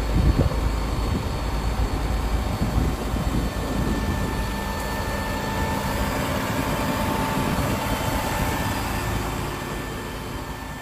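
Large tractor's diesel engine running under heavy load, a steady low rumble as it strains in deep mud, with a few low thumps about half a second in.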